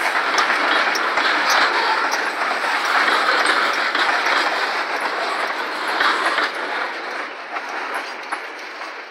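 Freight train tank cars rolling past, with steel wheels clicking over the rail joints. The sound fades away after the last car passes, about six seconds in.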